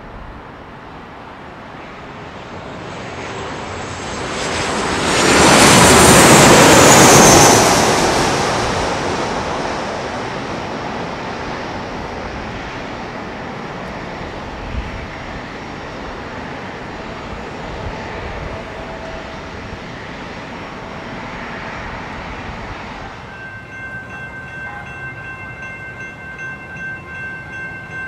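Twin-engine jet airliner on final approach passing low: the jet engines build to a loud roar with a high whine sliding down in pitch, then slowly fade away. Near the end a steady high-pitched whine of several tones takes over.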